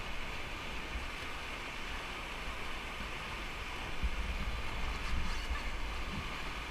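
Whitewater rapids rushing steadily around a raft, with a low buffeting rumble on the microphone that swells about four seconds in.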